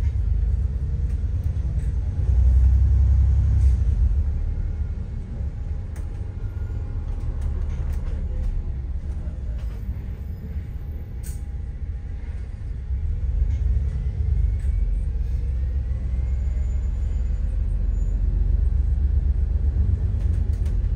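Low, steady engine and road rumble heard from inside a moving bus. It swells loudest a couple of seconds in, eases, then builds again toward the end, with faint rattles and clicks over it.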